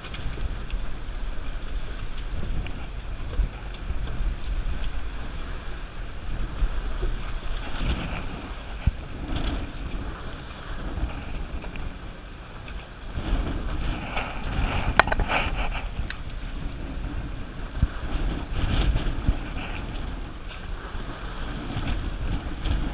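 Wind buffeting the microphone over a steady low rumble aboard a party fishing boat, with a couple of brief sharp clicks about two-thirds of the way through.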